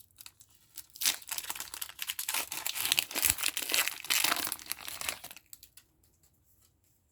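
Foil booster pack wrapper being torn open and crinkled by hand: a dense crackle lasting about four seconds, starting about a second in.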